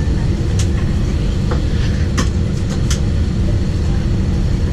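Steady low rumble inside an Airbus A320 cabin, with a few short sharp clicks scattered through it.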